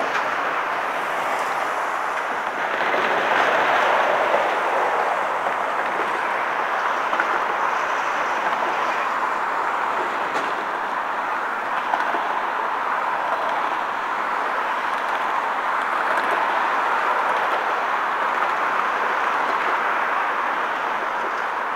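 Steady rush of road traffic passing close by, swelling about three seconds in and again later on.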